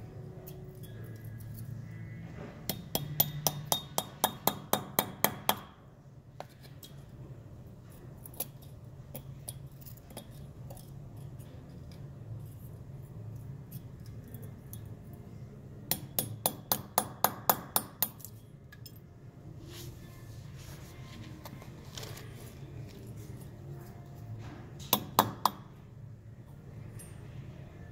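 Small hammer tapping on a cast aluminum piece to knock off the leftover white mold material, in quick runs of light metallic strikes about four a second: one run about three seconds in, another in the middle, and a few more strikes near the end. A steady low hum sits underneath.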